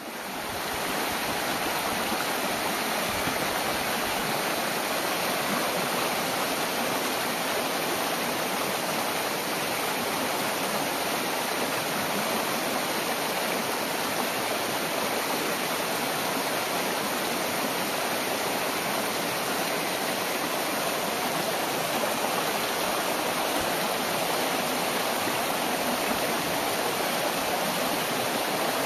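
Shallow mountain stream running over rock slabs, a steady rushing and splashing of water. It rises in over the first second, then holds even.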